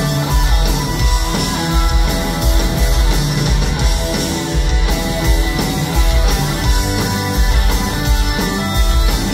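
Live punk rock band playing loud, with distorted electric guitars, bass guitar, drum kit and organ, to a steady driving beat.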